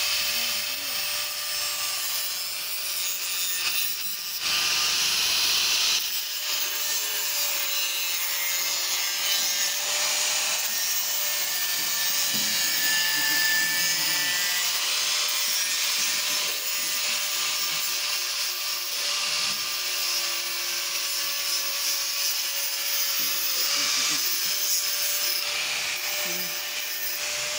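Handheld angle grinder grinding the steel frame of a motorcycle: a steady hiss of the disc on metal over the motor's whine. It grows louder for a stretch about four to six seconds in.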